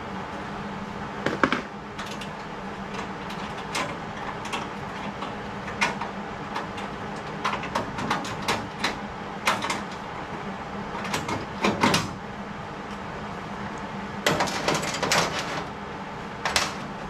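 Irregular knocks, clicks and clanks, like tools or metal parts being handled and set down, over a steady hum. A cluster of quick knocks comes a little before the end.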